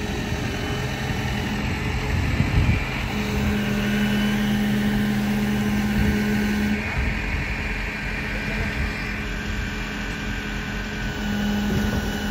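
Flatbed tow truck's engine idling: a steady low hum whose tone swells and fades twice.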